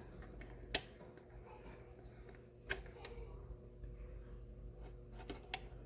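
Two sharp clicks about two seconds apart, then a few lighter ones near the end, from pressing the control buttons on a ceramic space heater to turn the heat up, over the faint steady hum of its fan.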